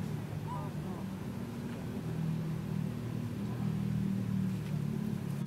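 A motor engine running steadily off-screen, a continuous low hum. There is a faint short squeak about half a second in.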